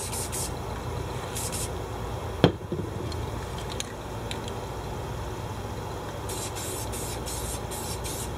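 Aerosol spray-paint can hissing in short bursts, a couple near the start and a quick run of light bursts near the end. A single knock comes about two and a half seconds in.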